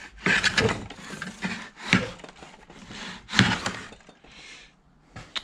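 Century-old wooden Mathieson jack plane being pushed along a pallet-timber board, its freshly sharpened iron cutting shavings: three scraping strokes about a second and a half apart, then a lighter one near the end.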